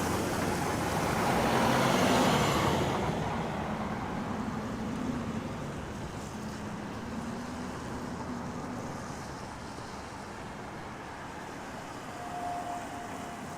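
Road traffic on a wet street: a vehicle passes with tyre hiss that swells to its loudest about two seconds in and then fades. Its low engine hum dies away over the next several seconds.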